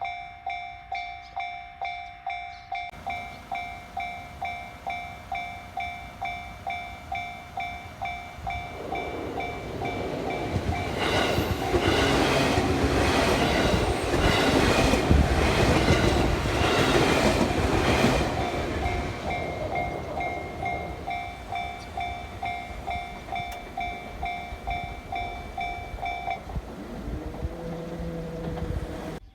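Japanese railway level-crossing warning bell ringing its steady, rapidly repeated "kan-kan" while a train passes over the crossing. The train's noise swells in the middle, its wheels clattering over the rail joints for several seconds. The bell stops a few seconds before the end.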